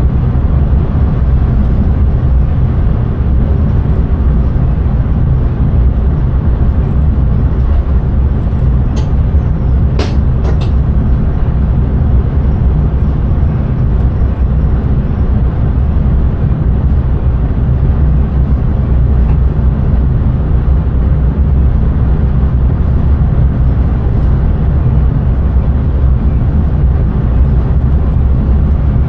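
Intercity train running at speed, heard from the driver's cab: a steady low rumble of wheels on rails and running gear, with a few short clicks about ten seconds in.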